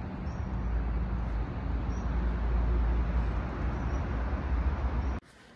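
Steady outdoor background noise with a heavy low rumble, like traffic or wind on the microphone, cutting off suddenly near the end.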